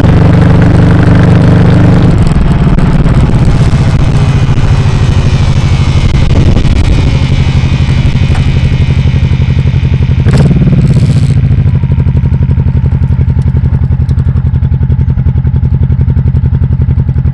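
1998 Honda Shadow VT1100T's V-twin engine running loud and close to a lapel mic clipped on the bike. Its sound shifts about two seconds in, a sharp knock comes about ten seconds in, and then it settles into a steady idle.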